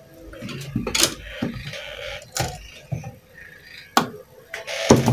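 About four scattered sharp clicks and knocks from pliers being handled against a TV circuit board on a wooden workbench.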